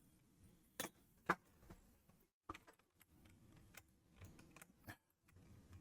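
Faint, scattered clicks of a computer mouse and keyboard in near silence, two clearer ones about a second in, then a few softer ones.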